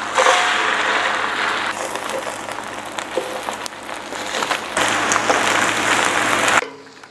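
Beaten egg sizzling on a hot nonstick electric griddle as it is laid down in thin sheets, with a few light clicks of wooden chopsticks and spatula. The sizzle swells again about five seconds in and cuts off sharply near the end.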